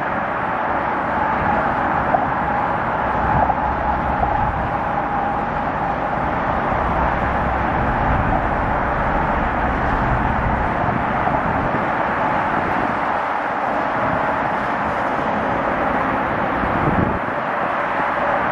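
Steady outdoor background rumble with a faint, steady hum held throughout; no distinct event stands out.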